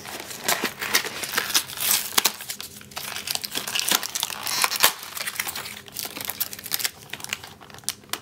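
Stiff clear plastic packaging and a cardboard box being handled: irregular crinkling and crackling as the plastic package is slid out of the box and picked at with the fingers.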